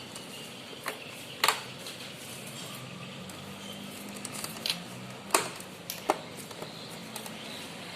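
A handful of sharp plastic clicks and knocks, about five spread out, over a steady room hiss: the back cover of a Lenovo all-in-one PC being fitted and pressed shut.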